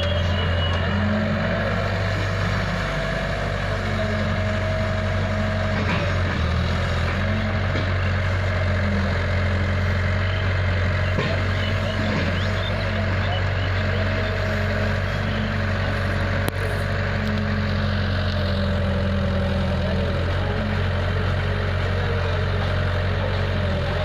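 Diesel engines of a green Eicher tractor and a Kato HD250 tracked excavator running steadily side by side while the excavator loads soil into the tractor's trailer.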